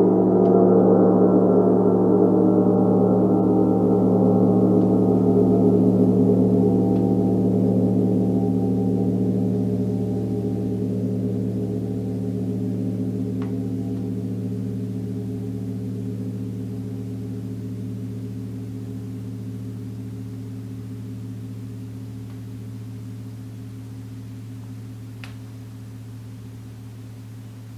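A gong rings on after being struck and slowly dies away over some twenty-five seconds. Its higher overtones fade first, leaving a low, steady hum. A couple of faint ticks come partway through.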